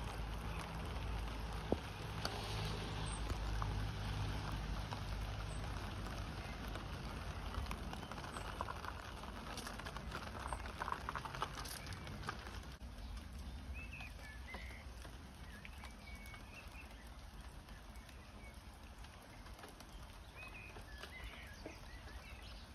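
Steady rain, with rainwater running from a gutter spout into a water butt. About halfway through, the sound drops to a softer patter of rain, and birds chirp now and then.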